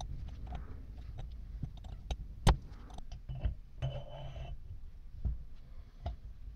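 Handling noise from metal pump parts worked with gloved hands on a bench: scattered clicks and light knocks, one sharp knock about two and a half seconds in, and a short scrape just after four seconds.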